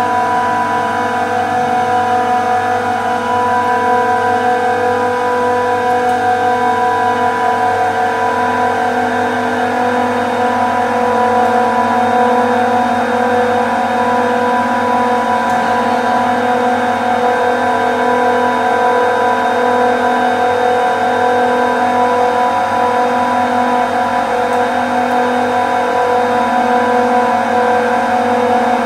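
Bank of industrial screw compressors running: a loud, steady machine drone with a strong multi-tone hum, which takes on a slow, even pulsing from about eight seconds in.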